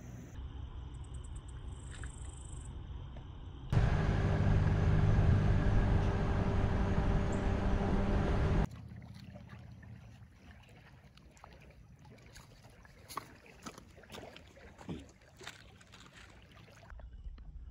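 A vehicle drives along a paved road with steady wind and road noise, starting about four seconds in and cutting off abruptly about nine seconds in. After it, water laps softly at a lakeshore with small, scattered splashes.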